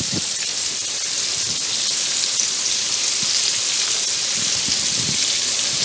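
Flour-coated chicken pieces shallow-frying in hot oil in a pan: a steady hissing sizzle with small crackling pops.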